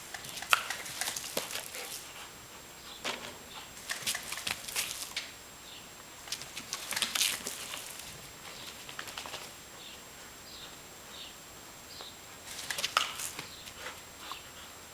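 Several short hissing bursts of water spraying and splashing onto wet concrete, about a second each, with faint high chirps in the quieter stretches between them.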